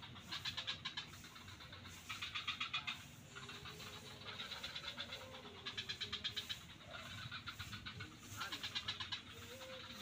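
Frogs calling: bursts of rapid, rattling pulses, each about a second long, repeated every couple of seconds over a faint steady background chorus.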